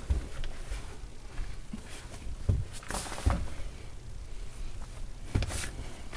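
Someone crawling over the plastic vapor-barrier liner of a sealed crawlspace: irregular crinkling and scuffing of the plastic sheeting under hands and knees, with louder rustles about two and a half, three and five and a half seconds in.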